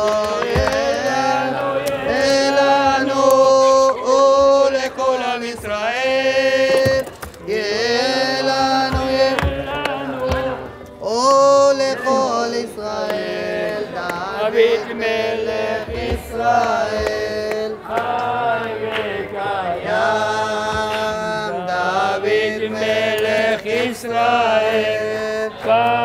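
A congregation singing a festive Hebrew melody together, with hand clapping.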